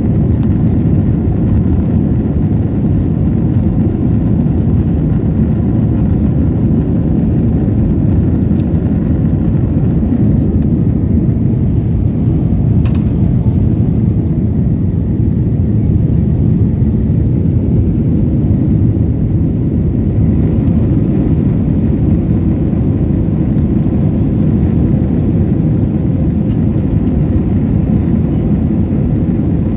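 Cabin noise of an Airbus A321-231 climbing out after takeoff: the IAE V2500 turbofans and rushing air heard from a window seat behind the wing, a loud, steady, dense noise strongest in the low range.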